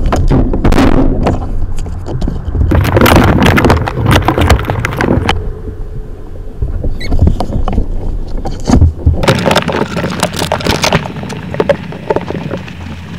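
Mink struggling inside a gassing box: irregular bouts of scrabbling, scratching and knocking against the box walls, with a few faint squeaks, over a steady low rumble.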